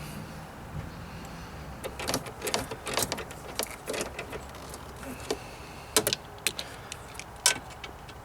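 Irregular clicks and knocks of hand work on a car's parts, with two sharper knocks about six and seven and a half seconds in.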